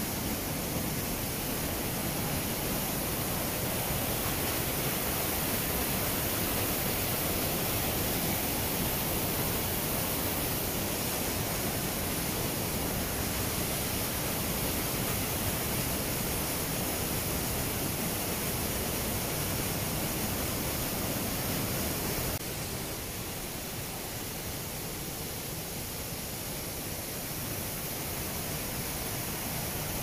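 Steady rush of falling water from the Iguazu Falls, a little quieter after an abrupt change about three-quarters of the way through.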